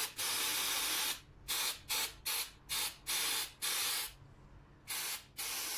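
Small aerosol can of glue-drying spray hissing in a series of spurts, about nine in all: most are brief, and the first and last run for close to a second. The spray is being used to dry freshly applied glue.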